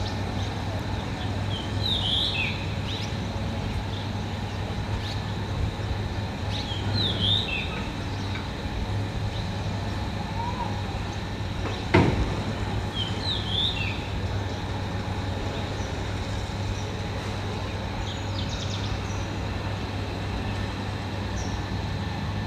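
Heavy construction machine's engine running steadily at a low hum, with a single sharp clank about halfway through. A bird chirps briefly every few seconds.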